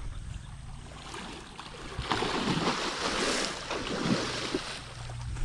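Heavy splashing in shallow water as a large hooked fish thrashes while being pulled ashore, a burst of splashing that starts about two seconds in and lasts nearly three seconds.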